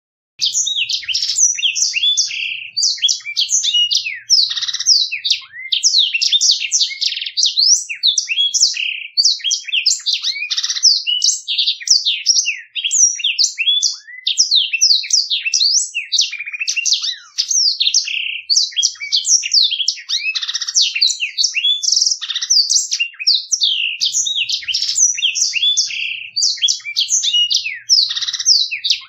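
Black-throated canary (blackthroat) singing a long, fast, rolling song of twittering trills and chirps, almost without pause, starting about half a second in.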